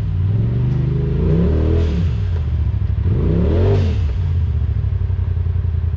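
Side-by-side UTV engine revving as it crawls up rock ledges: the revs rise and drop back twice, then run lower and steadier near the end.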